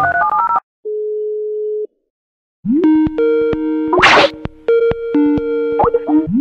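A short electronic tune stops just after the start. A single steady phone tone follows for about a second, and from under three seconds in a Skype call ringing tone alternates between two notes, with a brief noisy swish a little after four seconds.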